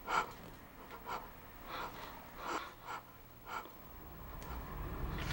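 A man breathing hard and unevenly in fright: about six short, sharp breaths and gasps. A low rumble swells in near the end.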